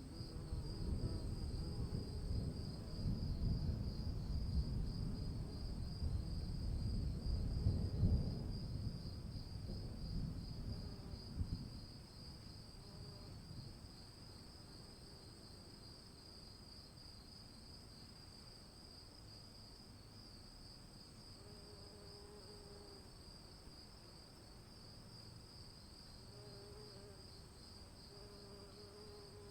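Crickets chirping steadily in a fast, even pulse, under a low rolling rumble of distant thunder that fades out about twelve seconds in, leaving the insects alone.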